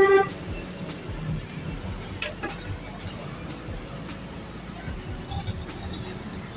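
Street traffic noise, opening with a short vehicle horn toot, then a steady background of traffic with a couple of brief clicks.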